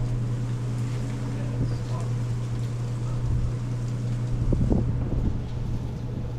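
A steady low mechanical hum, with a few knocks and clunks about four and a half to five seconds in.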